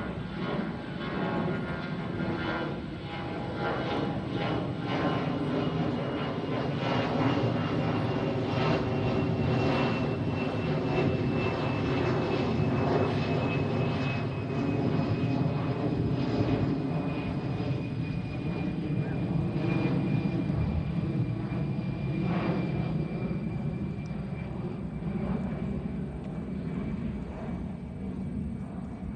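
Airbus A319 jet airliner climbing out overhead just after takeoff: a steady jet engine rumble with a high whine that slowly falls in pitch as the aircraft passes and draws away, easing off slightly near the end.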